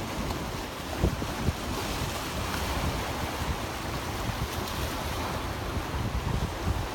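Sea surf washing in: a steady rush of waves with a low rumble underneath and a couple of brief low thumps about a second in.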